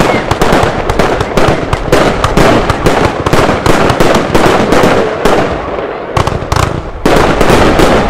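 Lesli Titanium Blue 49-shot, 25 mm fan-cake firework firing shot after shot: launch thumps and sharp flash-report cracks as the shells break, several a second. It eases briefly about six seconds in, then ends in a last dense volley.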